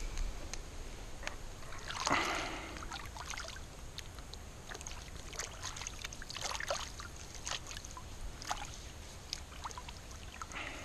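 Lake water splashing and lapping at a reedy shoreline. A larger splash comes about two seconds in, then scattered small splashes and drips.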